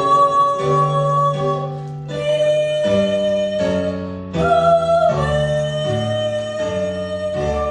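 Music: a slow passage of long held chords, changing every second or two, with a sustained melody note over them.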